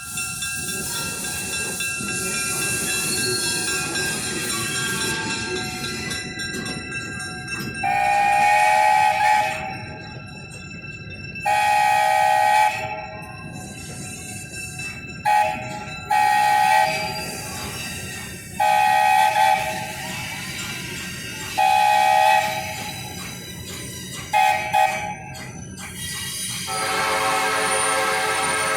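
Two trains' whistles sounding back and forth. One long held chord comes first, then a run of about eight short and medium blasts from a higher-pitched whistle, and near the end a lower-pitched whistle takes up a long steady note.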